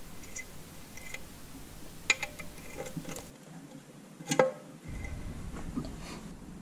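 Light metallic clicks and taps from a steel tool worked inside an aluminium transmission case, with two sharp clinks: one about two seconds in and a louder one a little past four seconds in.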